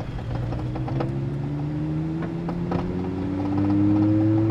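VW Mk6 Golf's 2.5-litre five-cylinder engine accelerating, heard from inside the cabin: its note rises slowly and grows louder, with a couple of faint knocks along the way.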